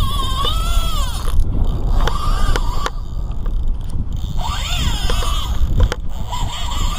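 Fishing reel's drag screaming as a hooked fish pulls line off the spool: a wavering whine that rises and falls in pitch and comes in spurts, with a few sharp clicks over a steady low rumble.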